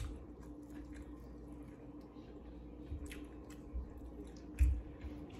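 Faint chewing and wet mouth sounds of someone eating fried chicken close to the microphone, with scattered small clicks and a low thump about four and a half seconds in, over a faint steady hum.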